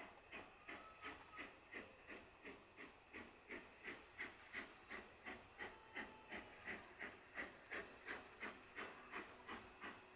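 Faint steam locomotive exhaust beats: an even chuffing of about three beats a second.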